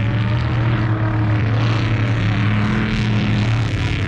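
Motor vehicle engines running steadily with a low drone. A second engine note comes in higher about two seconds in and holds for over a second.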